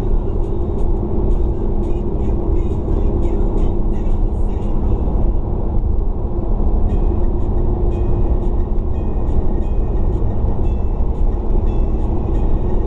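A car driving along a road, heard from inside the cabin: a steady low rumble of engine and tyre noise. Faint short high ticks run through it.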